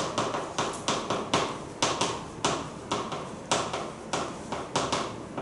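Chalk writing on a chalkboard: sharp taps as the chalk strikes the board, about three a second at an uneven pace, with faint scraping between strokes.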